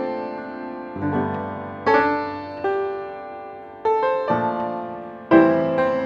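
Background piano music: slow chords struck about once a second and left to ring out and fade.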